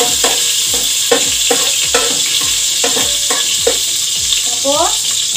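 Chopped garlic sizzling in hot cooking oil in an aluminium pot, a steady hiss as it fries toward golden brown. A metal utensil stirs it, knocking and scraping against the pot about seven times. A short rising pitched sound comes near the end.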